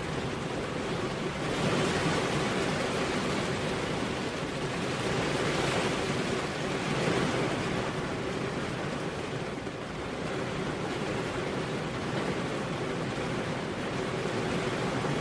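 Heavy rain falling on a road with no thunder: a dense, steady hiss of rainfall that swells and eases slightly in level.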